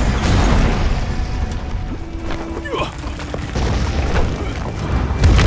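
Action-film sound mix: heavy low booms and rumble with scattered hits under dramatic music.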